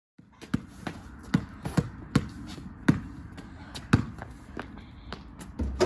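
Basketball dribbled on asphalt: a string of sharp bounces, irregularly spaced at about one or two a second, starting a moment in.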